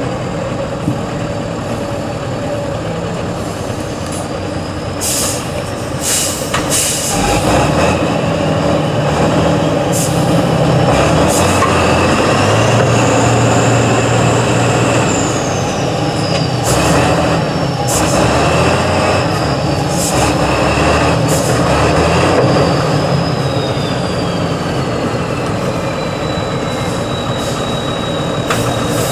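Tatra 815 8x8 truck's diesel engine working hard as the truck crawls slowly through deep mud. A high whine rises and falls over it, and there are several short sharp sounds.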